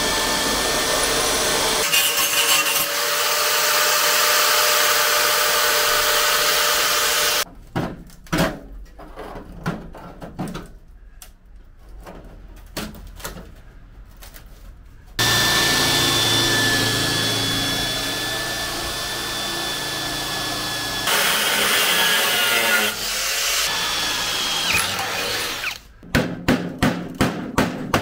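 A power tool running loudly in two long stretches, each with a steady whine over a rough hiss. Between them, for several seconds, come scattered knocks and clatter, and near the end a quick series of sharp knocks.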